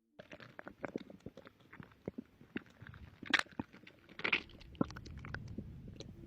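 Stomach gurgling recorded close against a pregnant belly: a run of irregular clicks and crackling pops, two louder gurgles about three and four seconds in, and a low rumble through the second half.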